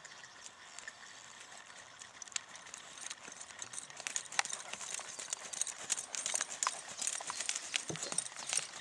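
A horse's hooves stepping through a sand arena at a walk, a stream of soft, irregular footfalls that grow louder about halfway through as the horse comes closer.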